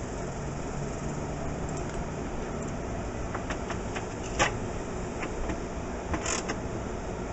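Hand tools clicking and tapping on the Beetle door's window regulator hardware as it is tightened down: a few light clicks, a sharper knock about four and a half seconds in and a short run of clicks around six seconds, over a steady background hum.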